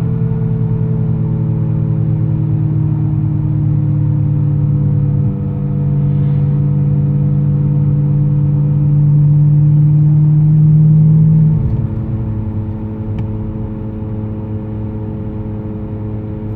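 Audi S5's 4.2 L V8 running under way, a strong low drone with steady whining tones laid over it: the weird high-pitched engine-bay noise that comes in above about 40 km/h and grows with speed, cause unknown. The drone briefly dips about 5 seconds in and falls away sharply about 11 seconds in.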